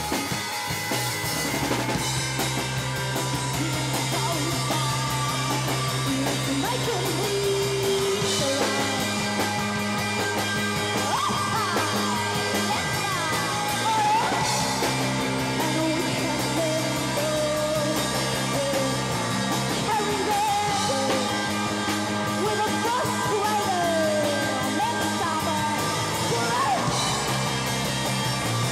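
Rock band playing live: guitar, bass and drum kit, with a voice singing and pitches sliding over held low bass notes.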